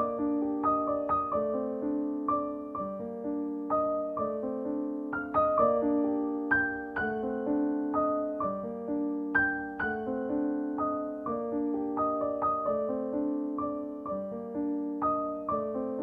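Background piano music: a repeating pattern of struck notes, a few a second.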